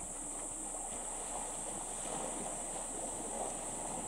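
Steady rushing of river water, with a constant high-pitched insect drone over it.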